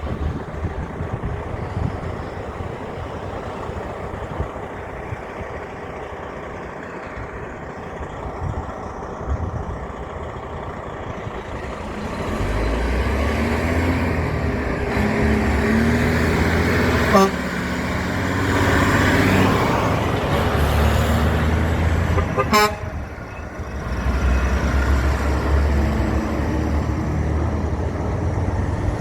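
A big truck approaching and passing with its engine running loud, sounding two short blasts of its horn about five seconds apart; after the second blast another heavy vehicle's engine carries on.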